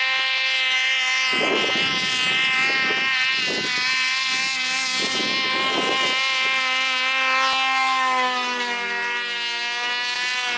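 Snowmobile engine running steadily as it climbs the trail, a buzzing drone that drops a little in pitch near the end as the sled passes close by. A few gusts of wind noise rush over it.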